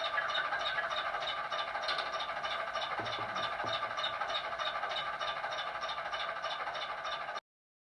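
Ruston 48DS diesel shunter engine sound played by a model locomotive's sound decoder through its small on-board speaker, a steady, evenly beating diesel running note with a light mechanical clatter. It cuts off abruptly near the end.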